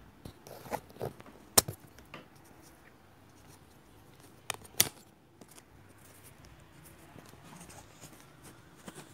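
Scattered sharp clicks and snaps from small parts and tools being handled on a workbench. The loudest comes about one and a half seconds in, with another pair near five seconds.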